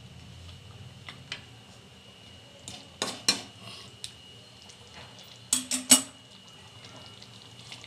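Steel spoon clinking and scraping against a metal kadai while thick chicken gravy is stirred: scattered sharp knocks, with a quick run of three loud clinks near the six-second mark.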